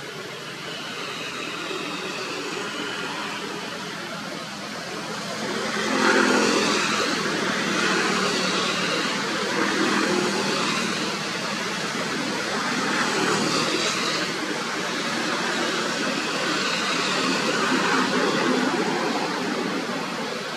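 Background road traffic: motor vehicles running past, the noise swelling loudest about six seconds in and then rising and falling as they pass.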